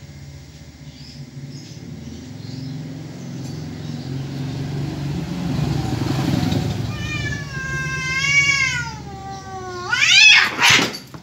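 Domestic cats in a territorial standoff: a low growl builds steadily, then breaks into a long wavering yowl that falls in pitch. Near the end it ends in a sharp rising screech and a loud noisy burst.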